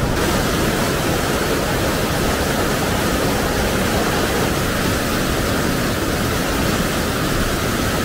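Mountain stream rushing over rocks, a steady loud rush of water running high after days of heavy rain.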